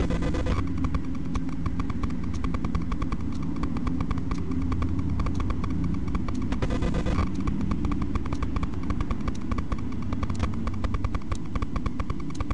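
Vehicle engines running with a dense, rapid, even beat under a steady low rumble, and a brief louder rush of a vehicle passing about halfway through.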